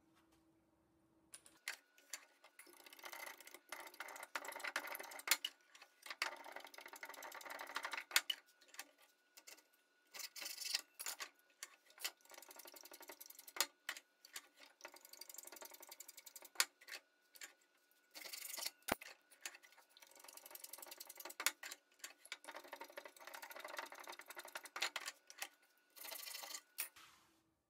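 Hand plane shaving a small wooden wedge: repeated cutting strokes in runs of a second or two with short pauses, among sharp clicks and knocks of wood against the bench.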